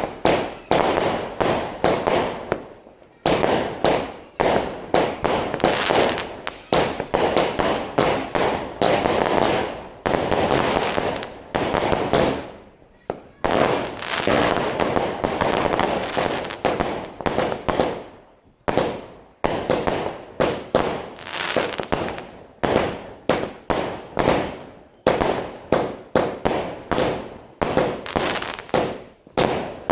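Fireworks and firecrackers going off: a fast, irregular run of sharp bangs, each dying away quickly, with denser crackling stretches around the middle.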